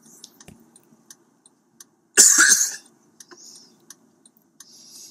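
A man coughing once, harsh and close to the microphone, about two seconds in, with faint scattered ticking clicks around it.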